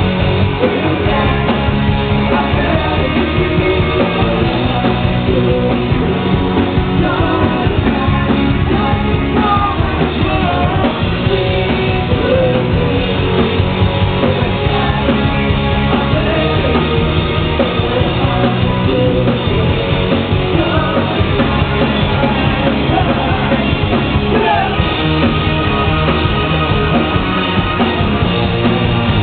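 Rock band playing live: electric guitar, bass guitar and keyboard, with a singer's voice over the band.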